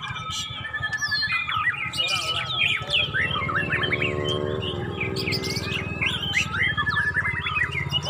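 White-rumped shamas (murai batu) singing several at once: a dense, unbroken run of fast whistles, trills and chirps, with the songs overlapping.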